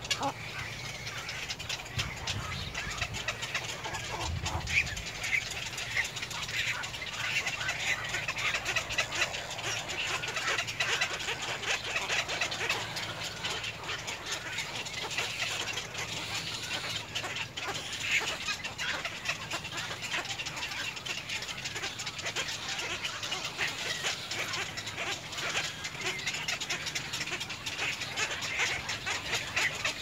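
Many birds calling at once: a dense, unbroken chatter of short calls.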